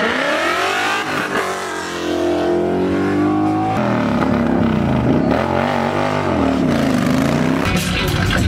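Car engine revving hard: its pitch climbs in the first second, then from about halfway through rises and falls again and again, about once a second.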